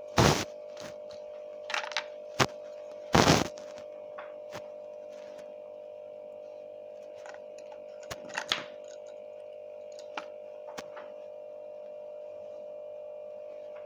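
Small plastic toy figures handled and knocked against a table: scattered sharp clacks, the loudest just after the start and about three seconds in, over a steady hum.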